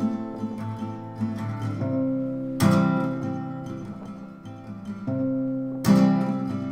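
Acoustic guitar music: a strummed chord rings out about every three seconds, with softer picked notes in between.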